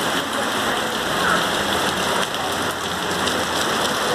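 Steady rain falling on the street and pavement, an even hiss with scattered sharper drop taps.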